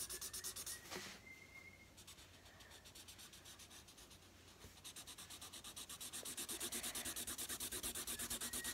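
Felt-tip marker scribbling quickly back and forth on paper while colouring in, at about five strokes a second. It is fainter for a few seconds, then louder and steadier from about four and a half seconds in.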